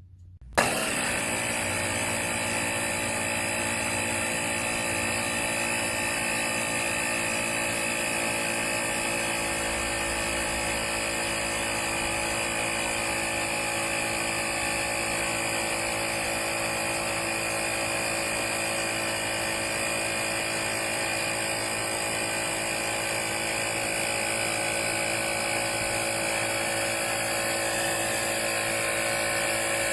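Powools 150 PSI cordless tire inflator's compressor switching on suddenly and running steadily with a constant motor drone.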